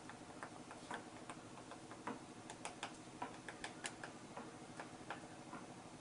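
Himalayan woodpecker pecking at a bare branch: faint, irregular taps, a few a second, most closely bunched in the middle.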